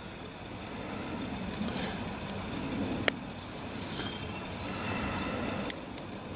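A few sharp taps of a tool striking the stacked steel laminations of a microwave oven transformer to break up the varnish holding them together. Behind them, a short high chirp repeats about once a second.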